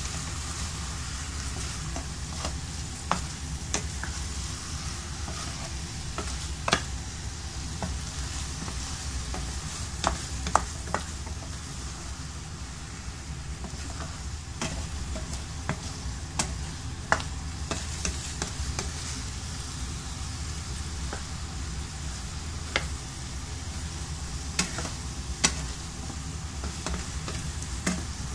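Scrambled egg and tomato frying in a nonstick pan while a spatula stirs it: a steady sizzle with scattered sharp clicks of the spatula against the pan, over a low steady hum.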